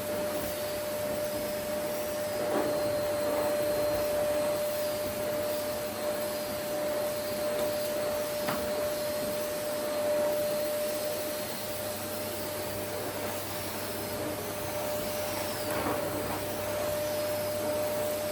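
Vacuum cleaner running steadily, a constant whoosh with a steady whine, with a few brief faint knocks as it is moved.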